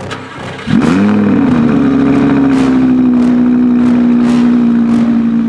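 Audi R8's V10 engine catches about a second in, its pitch flaring up quickly and easing back, then runs at a steady, high fast idle.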